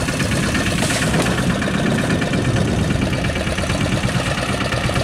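A fishing boat's engine idling with a steady, even low rumble.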